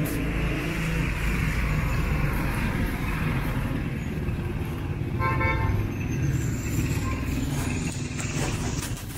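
Street traffic with a vehicle engine running steadily, and one short horn toot about five seconds in.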